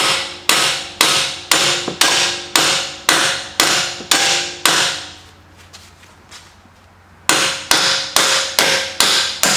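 Hammer striking the end of a splined strut-to-knuckle bolt to knock it out of the steering knuckle on a 2016 Camaro SS front suspension: about ten sharp metal-on-metal blows, two a second, each with a short ring. After a pause of about two seconds come about six slightly quicker blows.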